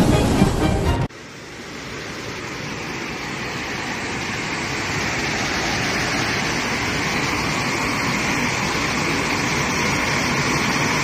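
A steady roar of rushing floodwater and heavy rain, beginning after a sharp cut about a second in and slowly swelling, then holding. Before the cut, a louder passage with steady tones runs for the first second.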